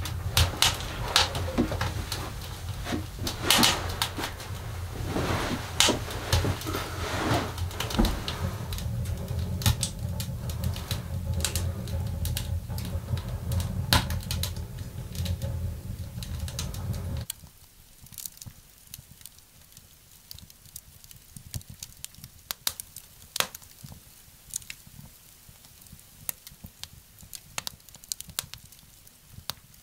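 Wood fire in a small wood-burning stove crackling and popping over a steady low rumble. About 17 seconds in the level drops abruptly, leaving only quieter, scattered crackles.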